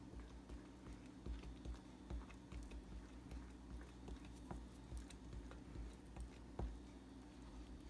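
Batter being stirred by hand in a mixing bowl as flour is worked in: irregular light taps and clicks of the utensil against the bowl, with soft low thumps.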